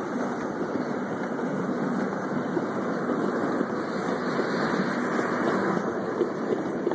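Ride-on miniature steam locomotive running along the track, heard from the car right behind it: a steady, dense mix of exhaust and running noise.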